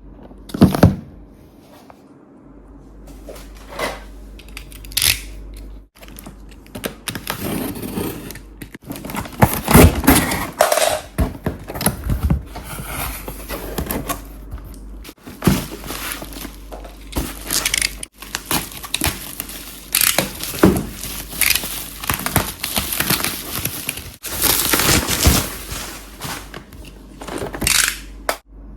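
Packaging being handled and opened by hand: crinkling and tearing of plastic and cardboard, with scattered knocks and taps of uneven loudness.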